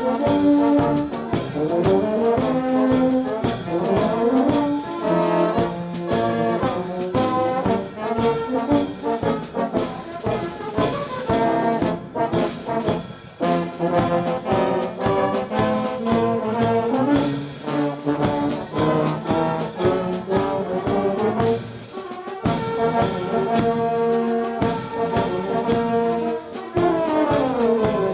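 Brass band music: trombones and trumpets playing a tune over a steady drum beat.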